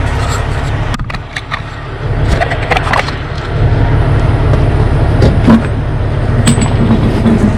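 A heavy truck tire and wheel being handled on a spoke-wheel hub, with a few knocks and scrapes, over a steady low rumble.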